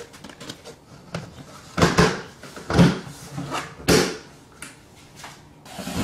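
Plastic lid being fitted onto a plastic bucket by hand: three main knocks, about a second apart, with scraping of plastic on plastic and smaller handling noises.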